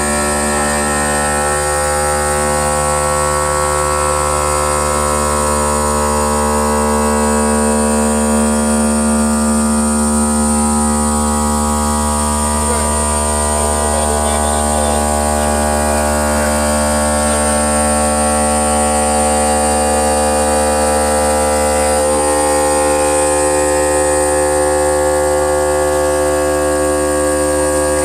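CNC stone cutting and polishing machine running steadily, a loud hum made of many steady tones with a high whine above it.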